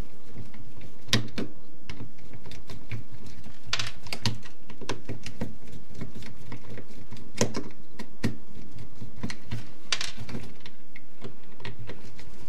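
A screwdriver backing small screws out of a Roomba 4000's plastic wheel module, giving irregular small clicks and ticks over a steady low hum.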